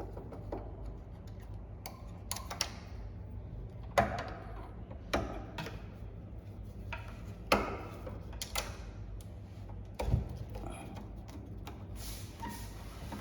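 Irregular sharp clicks, taps and knocks of metal parts and tools being handled while an electric door lock is taken apart to get at its coil, about a dozen in all, over a steady low hum.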